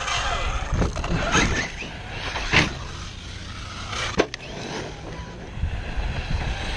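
Electric RC monster truck driving on dirt, its brushless motor whining up and down in pitch over the crunch of tyres on gravel, with a few sharp knocks from the truck hitting the ground.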